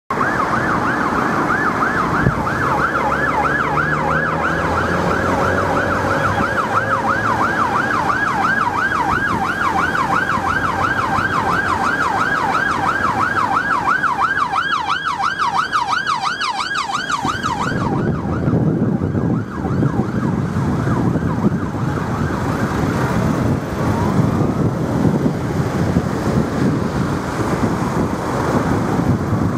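Police response car's siren on a fast yelp, rising and falling about three times a second, which stops suddenly about two-thirds of the way through, leaving the noise of car engines and traffic. Near the end a siren starts to rise again.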